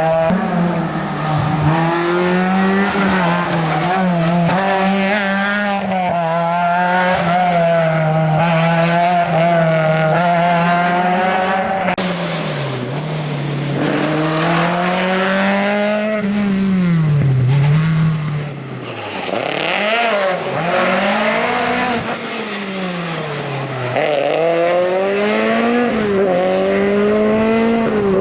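Historic rally car's engine revving hard on a special stage, its pitch climbing and dropping repeatedly through gear changes and lifts for corners.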